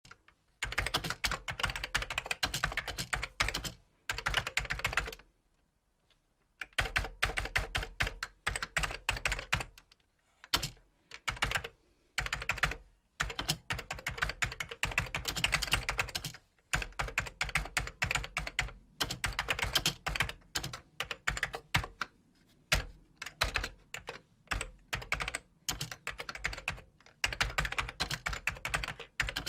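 Typing on a computer keyboard: rapid runs of key clicks broken by short pauses, the longest a little over a second.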